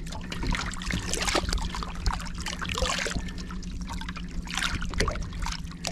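Water splashing and trickling around a barramundi held by the lower jaw at the surface, as it is swum to revive it before release. A steady low hum runs underneath.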